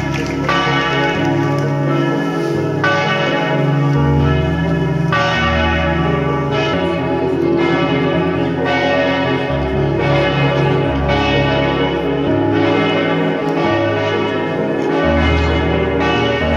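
Church bells ringing for a funeral, several bells struck in turn about once a second, each stroke left ringing into the next.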